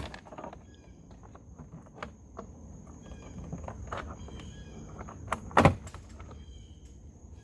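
Plastic retaining clips of a car's interior door trim panel popping loose as the panel is pried off, with sharp snaps right at the start and a louder one about five and a half seconds in, and smaller clicks between. Crickets chirp in the background.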